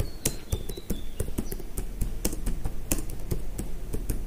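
Typing on a computer keyboard: a quick, irregular run of key clicks, several a second, as a line of text is entered.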